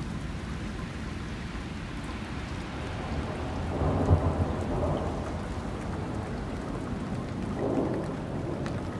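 Steady rain from a thunderstorm, with a rumble of thunder swelling up about four seconds in and a smaller rumble near the end.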